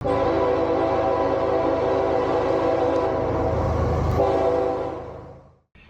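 Locomotive air horn sounding one long blast, a chord of steady tones over the low rumble of the train, fading out about five seconds in.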